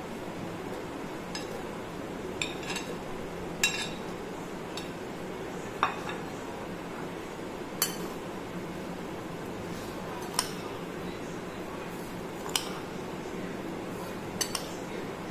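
A metal spoon clinking against a china plate and a glass blender jug as apple chunks and then sugar are spooned in: a sharp clink every second or two, one ringing briefly, over a steady low hum.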